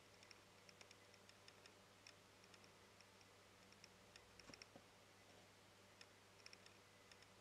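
Faint, irregular small wet clicks of a sugar glider's tongue lapping milk at the tip of a feeding syringe, a few clicks a second, over a faint steady hum.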